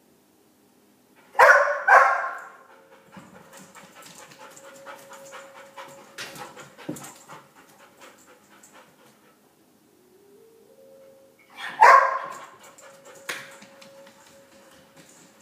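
A dog left alone barks twice, then whines steadily and pants, with faint ticks like claws on a hardwood floor, and barks once more near the end: distress vocalising typical of separation anxiety.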